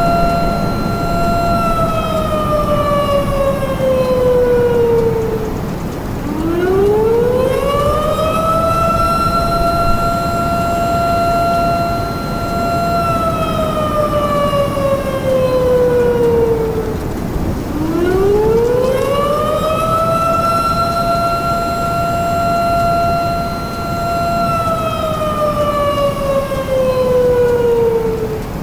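Outdoor tornado warning siren wailing over a steady low rush. Its pitch climbs over about two seconds, holds, then slowly sinks, in long cycles of about eleven seconds. It is falling at the start, rises twice, and is falling again at the end.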